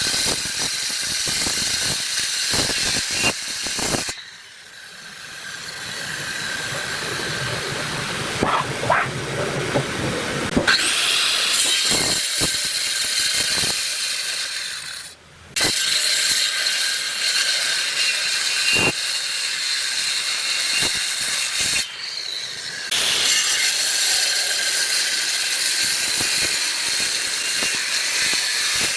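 An electric power tool working solid wood, with a loud hissing whir. It stops abruptly a few seconds in, builds back up, and cuts out briefly twice more before running on.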